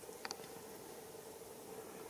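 Two quick, sharp, high ticks about a quarter of a second in from a tit feeding among Japanese cedar cones, over a faint steady hum.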